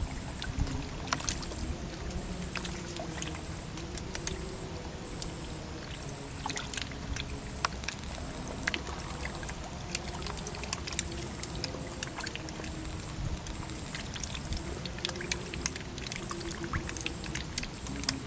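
Water trickling and bubbling in a small pond, with many small clicks and pops as bubbles rise and break at the surface. A high, thin chirp repeats a little under twice a second behind it.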